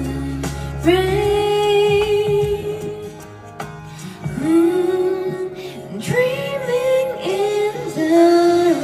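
A woman singing long held notes into a handheld microphone over a backing track, with a short quieter gap a little past the middle and higher notes toward the end.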